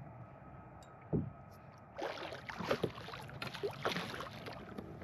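Water splashing and sloshing, starting about two seconds in, from a hooked redfish thrashing at the surface beside a kayak as it is brought in. One dull knock about a second in.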